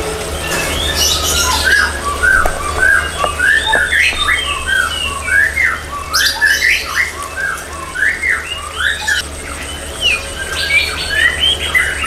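Small songbirds in an aviary chirping and calling together, a busy run of short sweeping notes overlapping one another, over a steady low hum.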